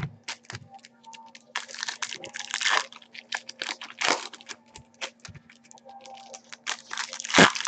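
Trading cards and their pack wrappers being handled: an irregular run of short clicks, slaps and crinkling rustles as cards are flicked and sorted by hand, over a faint steady hum.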